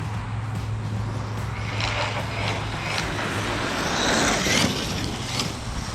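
Arrma Kraton EXB RC truck being driven, its brushless motor whining up and down with its tyres scrabbling, loudest around four seconds in, over a steady low hum.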